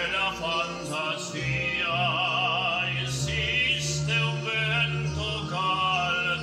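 A man singing in an operatic style, holding long notes with a wide vibrato.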